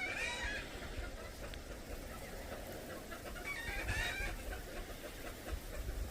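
A chicken clucking: a short run of calls at the start and another about four seconds in.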